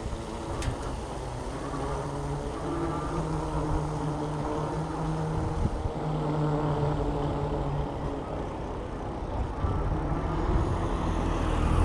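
Riding noise from a bike on an asphalt path: wind on the microphone and tyre noise, with a steady low hum that grows slowly louder.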